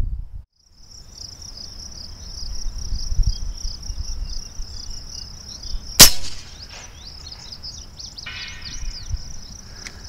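Crickets and other insects chirping steadily, then about six seconds in a single sharp report from a .50-calibre AirForce Texan big bore air rifle being fired, the loudest sound. About two seconds later comes a faint ringing that lasts about a second: the distant steel target plate being hit.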